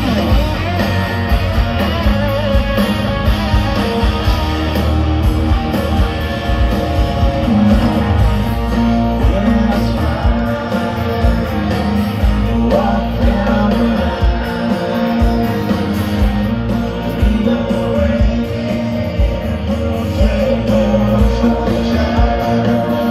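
A live rock band plays through large outdoor PA speakers, heard from within the crowd: distorted electric guitars over bass and drums.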